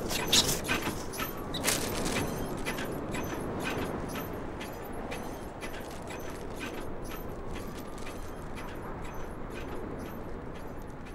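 Wind blowing while a crumpled paper wrapper flaps and crackles as it is carried along, the crackles loudest and densest in the first couple of seconds and growing sparser.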